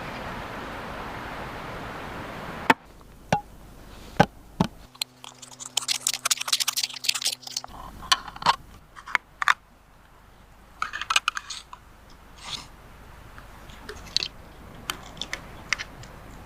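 Steady outdoor background noise, then from about three seconds in a run of sharp, irregular clicks, taps and knocks, with a low steady hum for a few seconds in the middle.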